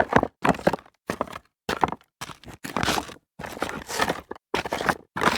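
Footsteps crunching over loose rock debris, an even walking pace of about two steps a second, each step a short gritty crunch.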